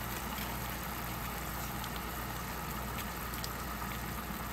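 Mushrooms and red wine simmering in a frying pan: a steady low hum and hiss with a few faint pops from the bubbling sauce.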